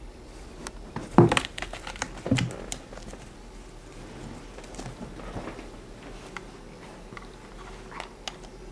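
A kitten playing on a carpeted cat tree: two dull thumps, about a second and two and a half seconds in, with light scratching rustles and small clicks in between and after.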